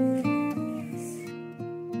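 Background music: an acoustic guitar picking a gentle run of notes, a few notes a second.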